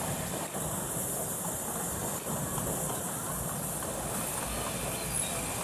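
Miniature steam locomotive hauling a passenger train out of a station: a steady hiss and rumble from the engine and train.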